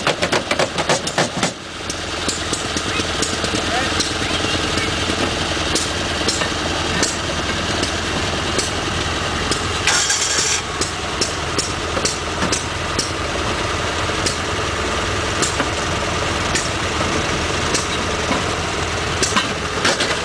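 Rail speeder engine idling steadily, with scattered clicks and knocks from the car being handled on the rails and a brief hiss about halfway through.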